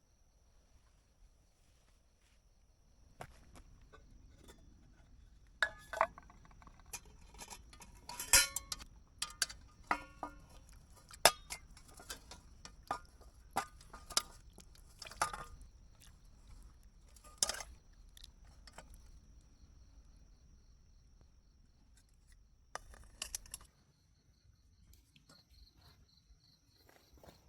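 Camping cookware and utensils clinking and knocking in scattered, irregular strikes over a faint low rumble, with a thin steady high tone throughout.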